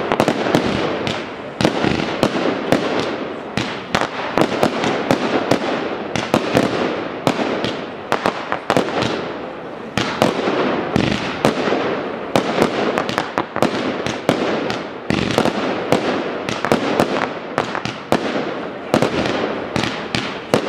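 Fireworks display firing rapidly: many sharp reports, several a second, over a continuous crackling hiss of shells, comets and crackling stars.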